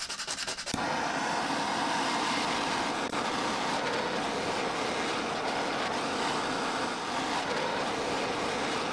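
A few quick strokes of abrasive paper on the steel blade, then under a second in a handheld gas torch comes on and burns with a steady hiss. The torch is heating the hardened knife's tang to soften it for drilling the handle pin holes, while the blade is kept cool in a wet cloth.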